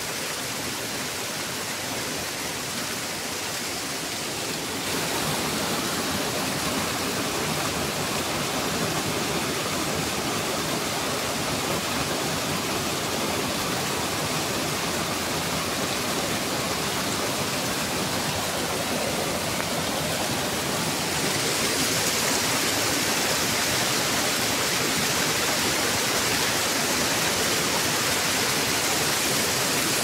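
Waterfall and rapids of brown, swollen river water rushing in a steady roar of noise; it grows louder about five seconds in and again a little after twenty seconds.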